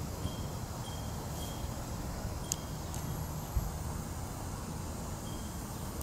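Outdoor ambience with no siren sounding: low wind rumble on the microphone, with a few brief high chirps and a sharp click about two and a half seconds in.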